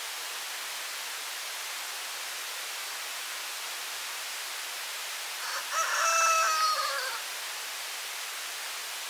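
A rooster crows once, a single call of about a second and a half with a slightly falling pitch, a little over halfway in, over a steady hiss.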